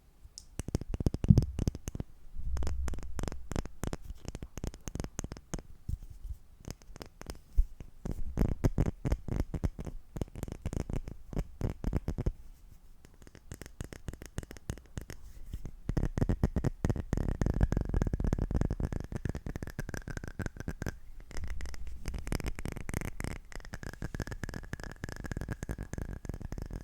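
Fast ASMR tapping close to the microphone: many rapid taps a second in dense runs, easing off into a quieter stretch about halfway through before picking up again.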